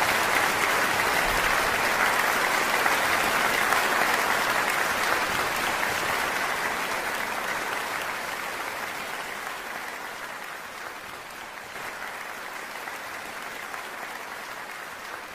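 Studio audience applauding, a dense steady clapping that slowly fades away.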